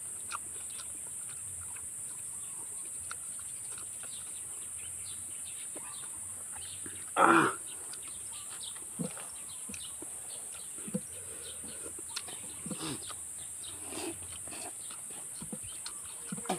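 Close mouth sounds of a man eating spicy instant noodles by hand: soft chewing and slurping clicks scattered through, and one short loud vocal burst about seven seconds in as he reacts to the heat. A steady high hiss runs underneath.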